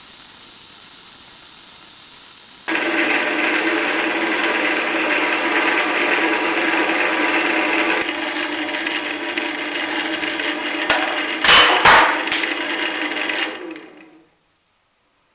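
An electric workshop machine running with a steady hum and a workpiece rasping against it, a louder rasp near the end, then the machine runs down and stops.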